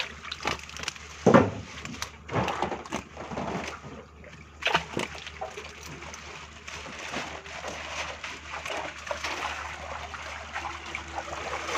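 Water sloshing and splashing as tilapia are handled at the pond edge, with scattered knocks and clatter; the loudest is a single thump a little over a second in.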